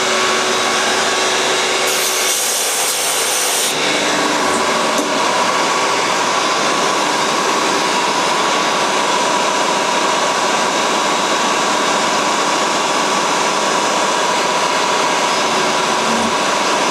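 Scratch-built CNC mill's 3-horsepower spindle running a half-inch three-flute roughing end mill through a metal block. It makes a loud, steady cutting noise with a steady whine.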